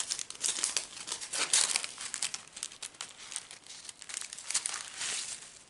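Foil and plastic packets of diamond-painting drills crinkling and rustling in the hands, in an irregular run of crackles.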